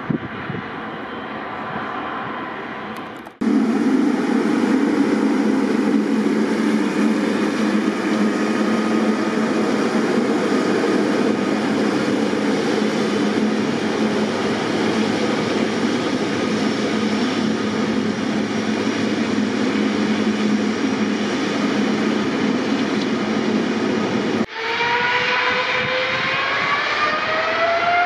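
Jet aircraft noise: first a quieter distant airliner takeoff, then a loud steady rumble as a United Boeing 777-300ER's GE90 turbofans run while it taxis close by. About three and a half seconds before the end, a rising whine takes over as the 777's engines spool up for the takeoff roll.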